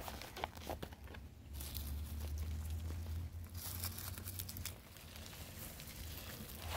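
Black plastic nursery pot crinkling and knocking as it is squeezed and worked, with begonia leaves rustling, while a stuck plant is eased out of it. A sharp knock right at the start, then scattered clicks and rustles.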